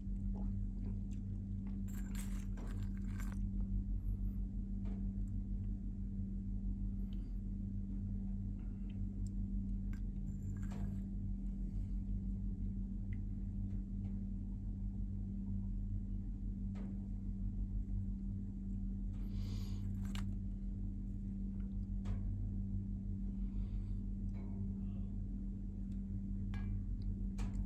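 A steady low hum, with a few faint, brief rustles and taps: about two seconds in, near the middle, and about two-thirds of the way through.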